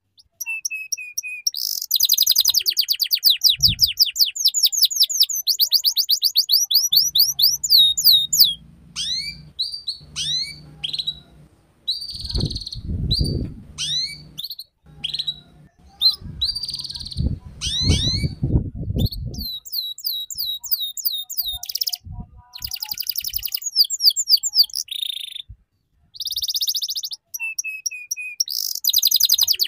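Young domestic canary singing fast rattling trills: rapid runs of repeated high chirps in the twittering 'ngeriwik' style, broken by short pauses and slower rising notes. A low rumbling noise sounds under the song through the middle.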